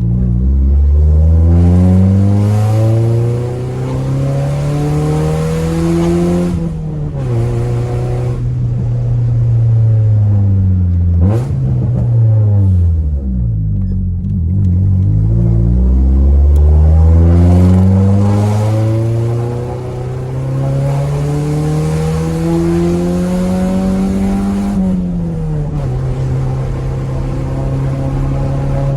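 Honda Civic EJ6 engine pulling hard up through the revs, easing off, then blipped sharply about eleven seconds in. It then climbs again for about ten seconds before dropping back and holding a steady note near the end.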